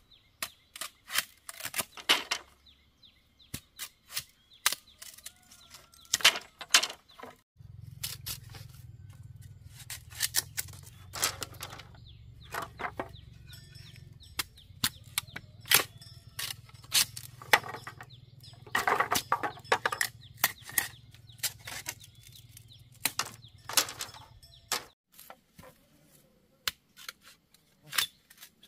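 Irregular sharp knocks of a hand tool striking bamboo, often several in quick succession with short pauses between. A low steady hum comes in about a quarter of the way in and stops near the end.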